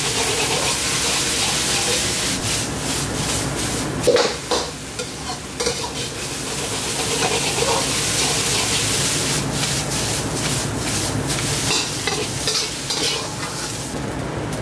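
Egg fried rice sizzling in a wok as a metal ladle stirs and scrapes it, with scattered clicks of the ladle on the pan and a louder knock about four seconds in.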